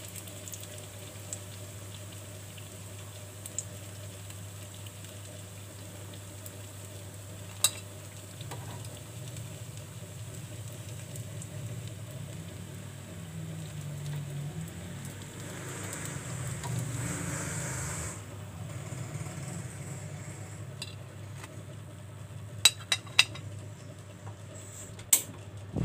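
Oil sizzling lightly in a frying pan around biscuit-coated fritters, with a metal spoon scraping and clinking against the pan and a plate as they are lifted out. Several sharp clinks come near the end, over a steady low hum.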